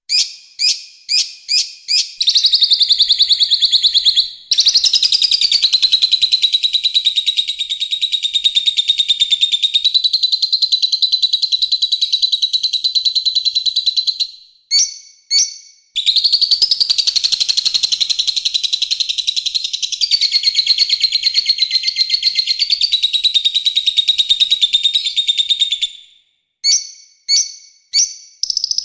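Songbird masteran recording: a dense, rough, rapid chattering song. It opens with a few quick separate notes, runs into two long unbroken rattling phrases with a short break between them, and ends with a few separate notes.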